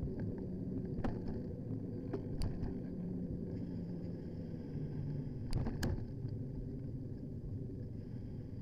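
Steady low rumble of a bicycle riding along a road, picked up by a handlebar-mounted camera, with a few sharp clicks and rattles, two of them close together about two-thirds of the way through.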